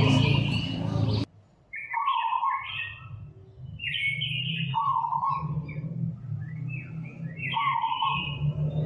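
Short high chirping calls in a phrase that repeats about every three seconds, over a steady low hum. A louder sound cuts off abruptly about a second in.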